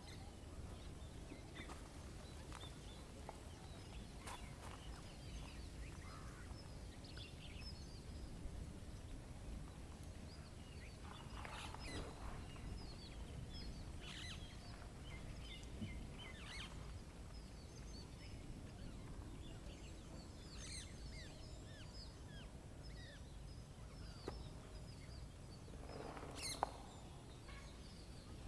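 Birds chirping and calling, scattered short chirps over a steady low rumble of background noise, with louder calls about twelve seconds in and again near the end.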